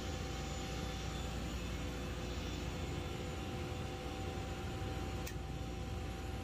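Steady machine hum with an even hiss over it, and one faint click about five seconds in.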